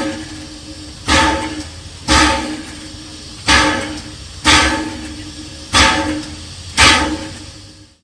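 Small steam locomotive starting to chuff: slow, sharp puffs of exhaust steam about one a second, each fading before the next. A few steady tones sound underneath.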